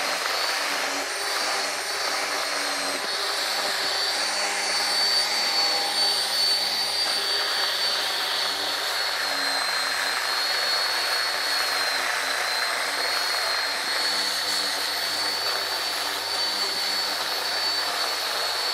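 Porter-Cable 6-inch variable-speed random orbital polisher/sander running steadily with 80-grit sandpaper against the edges of a whitewood 2x6 tabletop, knocking the edges down. A high motor whine that wavers slightly in pitch rides over an even sanding hiss.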